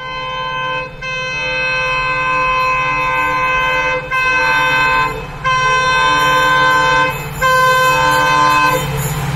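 Multi-tone air horn of an approaching Indian Railways EMD diesel locomotive, sounded in five blasts: a short one, a long one of about three seconds, then three of one to two seconds each. Beneath it runs the steady low rumble of the locomotive.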